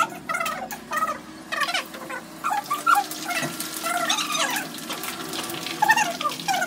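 Oil crackling and spitting as sliced onions deep-fry in a large kadhai of hot oil. Short, high chirping sounds break in over it again and again.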